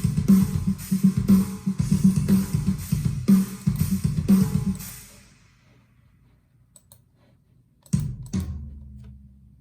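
Djent-style metal riff on guitar with drum kit, chugging in a tight rhythm, then stopping about five seconds in. After a pause, one final hit rings out and dies away.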